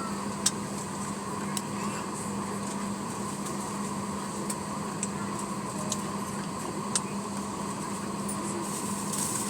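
Steady hum of an airliner cabin's air-conditioning and ventilation, holding constant tones, with a few short sharp clicks scattered through it, the loudest about half a second in.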